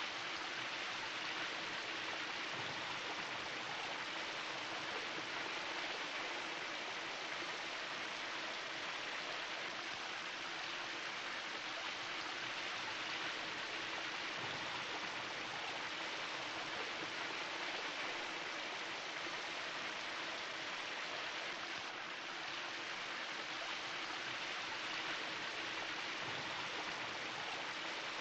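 Shower running, a steady spray of water falling.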